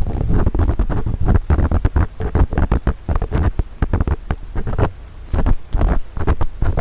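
Earpick scraping and scratching at the ear of a 3Dio binaural microphone: a dense, irregular run of rough rasping strokes with deep rumbles right at the mic, easing briefly about five seconds in.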